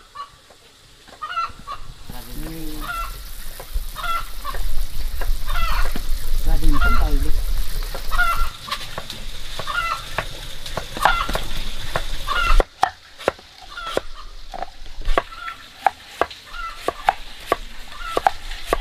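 Poultry calling over and over, short calls about a second apart, with a few lower calls among them. From about two-thirds of the way through, sharp clicks or knocks join in.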